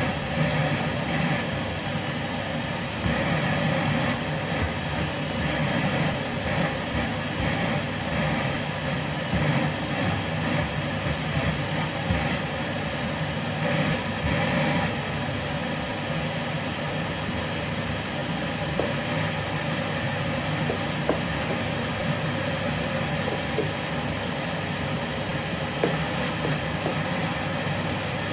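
Vacuum cleaner running steadily: a constant rushing motor noise with a thin high whine held steady above it.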